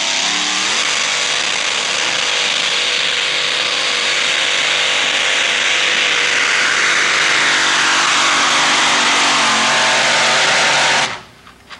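Two-wheel-drive pulling truck's engine at full throttle, dragging the weight sled down the track. It revs up at the start, holds a steady, harsh high-rev note, then drops away suddenly about 11 seconds in.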